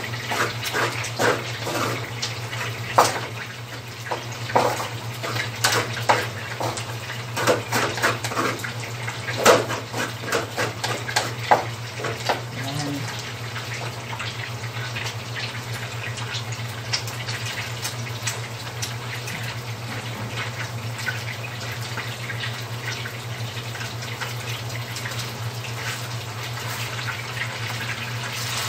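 A wooden spatula knocks and scrapes in a pan of fried rice, over the steady sizzle of longganisa sausages frying. The knocking thins out about twelve seconds in, leaving the sizzle and a low, steady hum.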